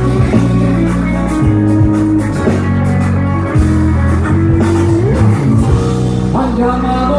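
Live band playing an instrumental interlude of a Spanish pop song between sung lines, with amplified guitar carrying the melody over bass and drums.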